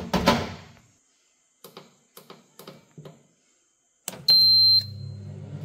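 Food dehydrator's glass front door knocked shut, a few light clicks from its control buttons, then one loud high beep as it is switched on and its fan starts with a steady low hum, warming the jar of apple juice for culturing at 37 °C.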